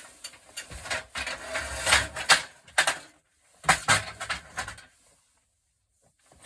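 Loose metal scrap parts clattering and knocking as they are handled, in two bursts of a couple of seconds each, then quiet.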